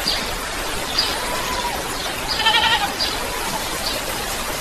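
Steady hiss of rain, with a short animal call about halfway through.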